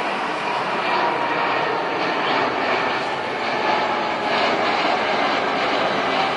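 Boeing 777-300ER's twin GE90 turbofans roaring at climb power as the airliner climbs out after takeoff. A faint whine in the roar slowly falls in pitch.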